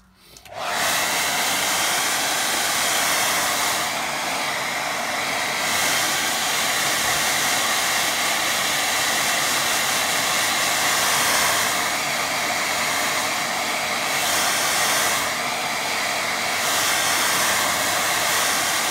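BaByliss hair dryer switched on about half a second in and then blowing steadily, its rush shifting slightly as it is moved about over a wet watercolour.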